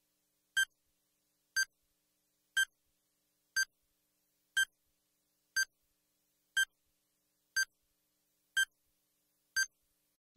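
Electronic countdown-timer beeps: ten short, identical beeps, one each second, counting down to zero. A sudden loud sound cuts in at the very end.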